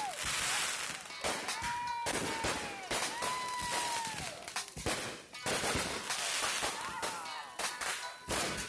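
Fireworks display: aerial shells bursting in rapid bangs and crackling. Several high held tones about a second long come through it, each dropping off at the end.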